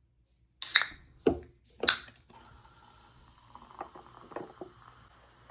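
Three sharp rustles and a click of items being handled in the first two seconds, followed by a faint steady hiss with a few small clicks.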